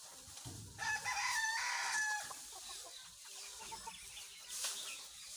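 A rooster crows once, starting about a second in and lasting about a second and a half.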